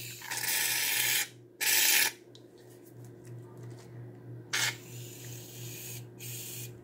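Aerosol shaving cream can spraying foam into a bowl of glue, hissing in bursts: two long sprays in the first two seconds, then a short one and a fainter one near the end.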